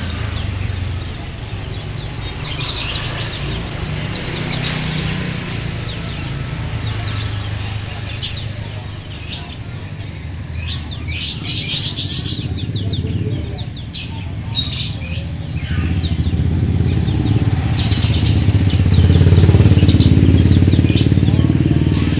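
Lovebird chirping in scattered short bursts of high, rapid notes, over the low rumble of a running engine that grows louder in the last several seconds.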